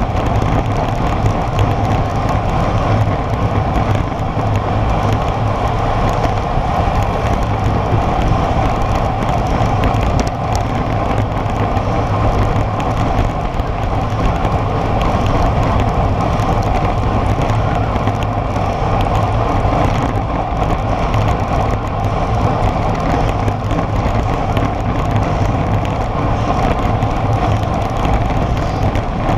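Steady rush of wind over a bike-mounted camera's microphone, mixed with tyre noise on asphalt, from road bikes riding in a group at about 45 km/h.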